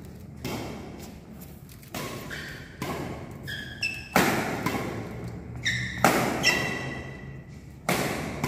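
Badminton rackets striking a shuttlecock in a quick drill rally: about ten sharp hits, each ringing out in a large hall's echo. Short high squeaks follow a few of the hits.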